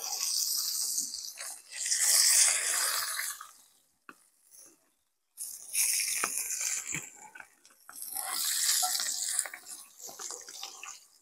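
Eggs, chorizo and a hamburger sizzling on a barbecue grill, a hiss with scattered crackles that comes in swells, broken by a brief silence about four seconds in.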